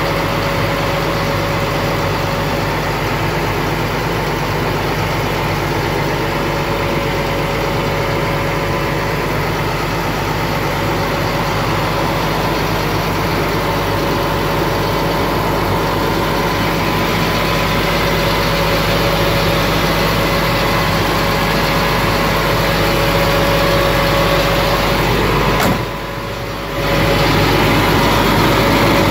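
Tow truck's engine idling steadily, with a steady whine over the engine note. Near the end a click comes, then the sound turns quieter for about a second before coming back.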